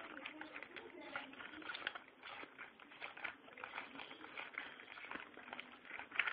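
Irregular small clicks, taps and rattles, like objects being handled and set down.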